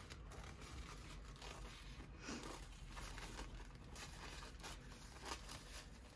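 Paper being handled: faint, irregular rustling and scraping.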